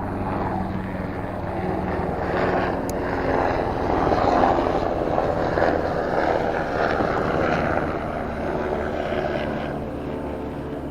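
A motor drones steadily with a low hum. It grows louder toward the middle and eases off near the end.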